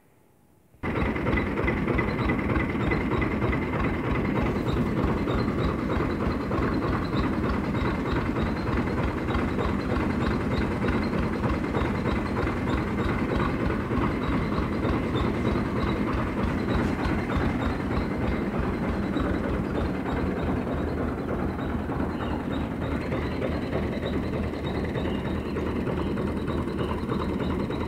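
Fiat 480 Special tractor's three-cylinder diesel engine running steadily with a rapid, clattering beat. It cuts in abruptly about a second in.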